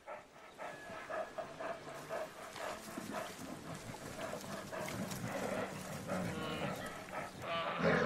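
Brown bears calling while mating: a run of short repeated calls, then longer drawn-out calls through the second half.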